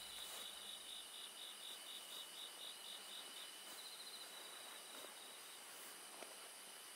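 Crickets chirping faintly: a high chirp repeated about four times a second, running into a short continuous trill a little past halfway, over a steady hiss.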